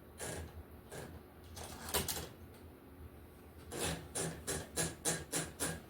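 Underwood 378 typewriter keys striking as symbols are typed: a few separate keystrokes, then a quick, even run of about four strokes a second over the last two seconds.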